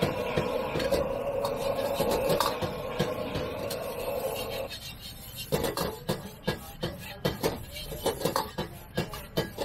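Metal ladle scraping and knocking against an iron wok while egg fried rice is stir-fried, over the steady roar of the gas wok burner. The burner roar cuts off about halfway through, leaving the ladle's separate scrapes and taps, several a second.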